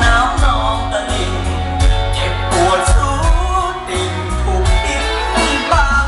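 Loud music with a singing voice over a heavy, pulsing bass and a steady drum beat, played through a large amplified PA sound system.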